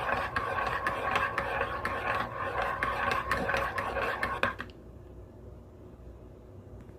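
A metal spoon stirring coffee in a ceramic mug, clinking quickly and repeatedly against the sides; it stops about four and a half seconds in.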